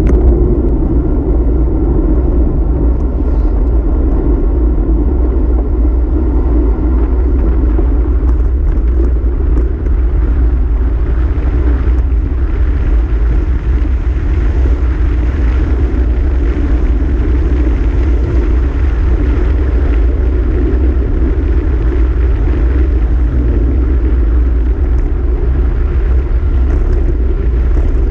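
Steady rush and rumble of wind buffeting a handlebar-mounted camera's microphone as a road bicycle rides along an asphalt road, mixed with the hum of its tyres on the road.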